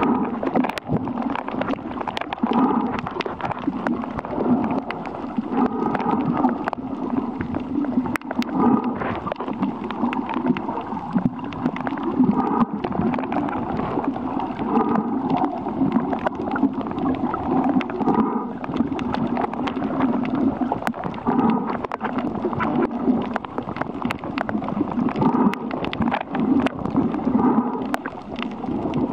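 Underwater reef ambience picked up through a camera's waterproof housing: a muffled, low, surging water noise that swells every few seconds, with scattered sharp clicks throughout.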